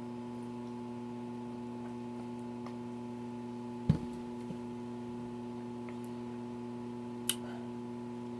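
A steady electrical hum made of several even tones, broken by one sharp knock about four seconds in and a faint click near the end.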